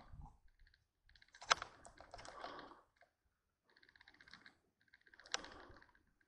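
Faint crackling and rustling of footsteps through dry brush and weeds, in short bursts with pauses between them, with a sharper snap twice.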